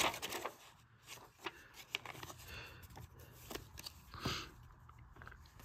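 Faint handling of paper coupons and inserts: scattered light clicks and short rustles, with a slightly longer rustle about four seconds in.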